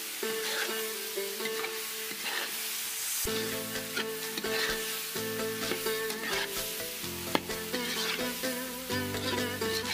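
Chickpeas, meat and diced vegetables sizzling as they fry in a kazan, stirred and turned over again and again with a spatula that scrapes the pot. Background music plays along.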